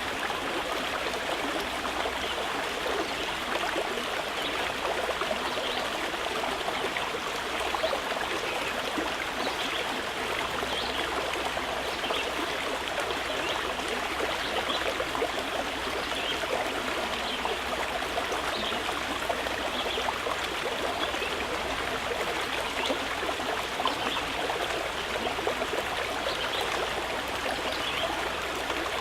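Water running and trickling steadily over stones, a continuous babbling stream with small splashes and gurgles.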